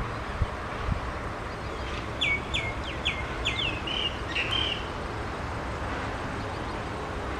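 A bird calling a quick series of about six short, high chirps, starting about two seconds in and stopping near five seconds, over a steady low outdoor background. A couple of brief dull low thumps come right at the start.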